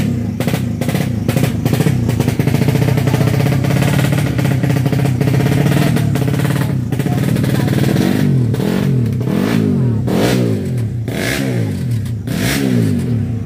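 Dirt bike engine running loud at high revs, then from about eight seconds in revving up and down in repeated blips.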